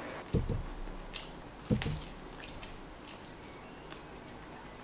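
Close-up mouth sounds of a man eating a pork rib: wet, squishy biting and chewing with faint scattered clicks. Two dull thumps come about half a second and just under two seconds in.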